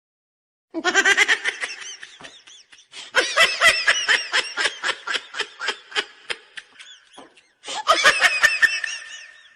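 A person laughing hard in three bouts of quick, repeated bursts, with short breaks between them.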